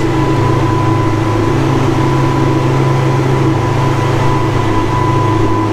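Twin Honda 225 four-stroke V6 outboard motors running steadily at cruising speed, a loud even drone over the rush of the boat's wake.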